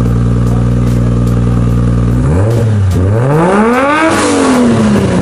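Nissan Silvia S15's engine idling steadily through its aftermarket racing exhaust, then revved twice: a short blip about two seconds in, and a bigger rev that peaks near four seconds and falls back toward idle.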